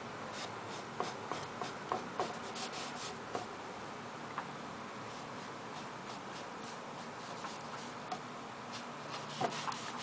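Paint-laden sponge dabbing and rubbing on a painting surface: soft scattered ticks and scrapes, clustered in the first few seconds and again near the end, over a steady faint hiss.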